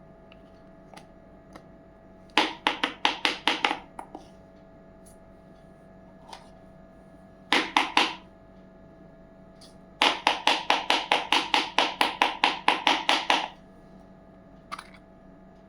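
Quick runs of light, sharp taps, about six a second, come in three bursts, the longest lasting about three and a half seconds, with a few single clicks between: small pieces of a miniature toy kitchen set being tapped or chopped.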